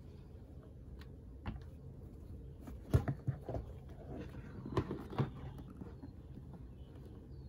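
Hands handling a vintage black leather Coach City Bag 9097: a few soft knocks and rustles as the bag is taken hold of and turned, the loudest about three seconds in and the last a little after five seconds. A steady low hum runs underneath.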